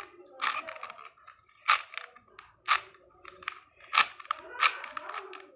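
Plastic 4x4 speed cube being turned by hand: layers clicking and clacking as they snap round, with about five louder snaps among lighter clicks.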